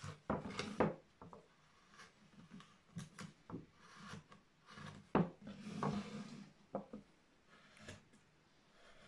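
Hand carving knife cutting and scraping into a wooden relief panel: a run of short, sharp cuts and clicks, with a longer rubbing scrape about six seconds in.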